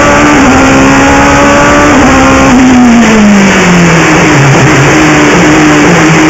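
Open-cockpit racing sports prototype's engine heard onboard at full throttle, loud and held at a high steady pitch, then falling over about two seconds as the car slows, running on at lower revs with small rises and dips.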